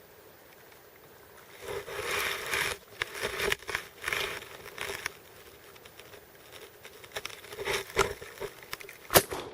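Irregular bursts of rustling and crinkling as the shotgun-mounted camera is moved and brushed through grass and clothing. A sharp click or knock comes near the end.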